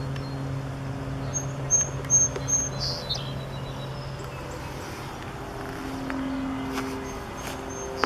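Outdoor ambience: a bird gives four short, high chirps between about one and a half and two and a half seconds in, over a steady low hum, with a few faint clicks later on.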